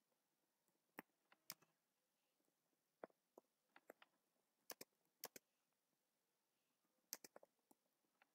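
Faint, irregular clicks of a computer keyboard being typed on, coming singly and in short runs of a few keystrokes.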